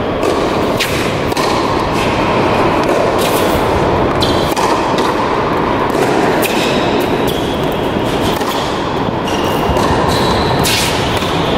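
Tennis rally on an indoor hard court: sharp racket strikes and ball bounces every second or two, with short squeaks of tennis shoes on the court surface, over steady background noise.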